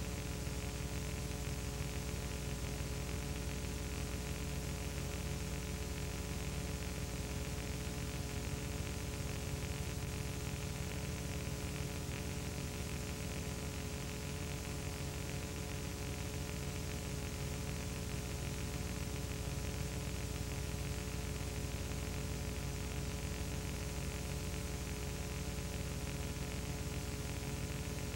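Steady hiss and electrical hum with a stack of constant tones and no other sound: the noise floor of a silent home-movie transfer that has no soundtrack.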